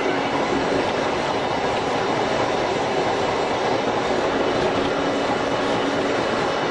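Tobu 5700 series electric train with nose-suspended traction motors running along the line, heard from the driver's cab: a steady running noise of motors, gearing and wheels on rail.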